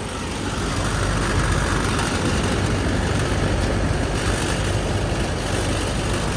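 Magic Chef central air conditioner's outdoor condenser unit running: a steady low hum with the even rush of its fan, growing louder about a second in.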